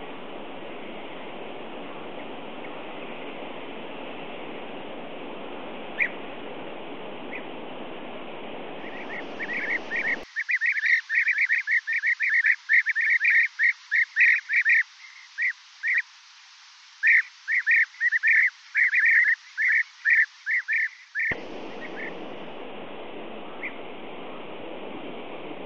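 European bee-eaters calling: long rapid series of short calls, several a second, in two bouts with a brief pause between them, clean and loud. Before and after them, only a few faint single calls over a steady hiss.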